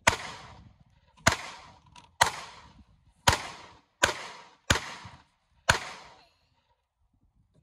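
Seven handgun shots fired at a steady pace, about one a second, each sharp report trailing off in a short echo; the firing stops about six seconds in.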